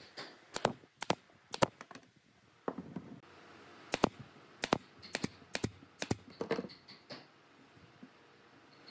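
Pneumatic brad nailer firing brads into wood: a string of sharp shots at irregular intervals, about half a second to a second apart, stopping about seven seconds in.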